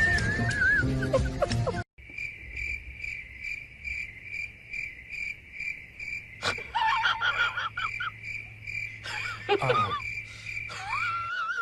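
Music for about two seconds, cut off abruptly, then a cricket chirping in a steady, fast pulsing trill. A sharp click and a few brief squeaky calls break in around the middle and again later.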